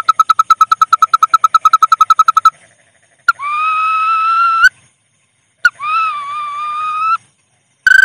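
Bird lure call for the bawangan sawah: a rapid trill of whistled notes, about ten a second, stopping about two and a half seconds in. After a short silence come two long, slightly rising whistled notes, each about a second and a half and each cut off abruptly.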